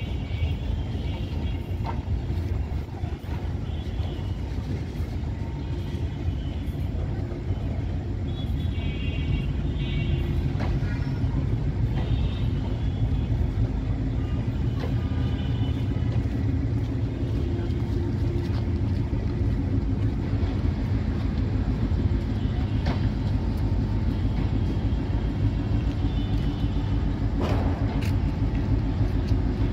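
Brand-new Chinese-built intercity passenger coaches rolling past on the rails: a steady low rumble with scattered sharp clicks of wheels over the track, swelling slightly about a third of the way in.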